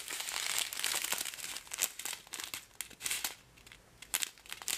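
A strip of clear plastic bags of round diamond-painting drills crinkling as it is handled: a dense crinkle for about two seconds, then a few short sharp crinkles.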